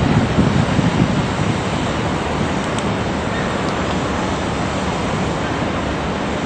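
Steady rushing noise of wind and water, with gusty low rumbles from wind on the microphone in the first second or so.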